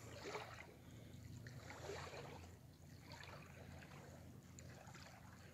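Near silence: faint outdoor background hiss.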